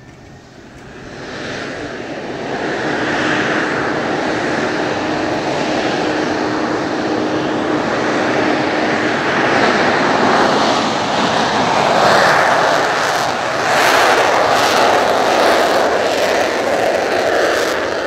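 The twin J79 turbojets of an F-4EJ Kai Phantom II running as the jet taxis past at speed. The noise builds over the first two seconds and then stays loud, swelling slightly in the second half.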